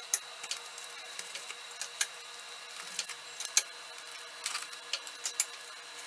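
Clear plastic cling wrap crinkling and crackling in scattered short clicks as hands smooth it flat over a cardboard window opening.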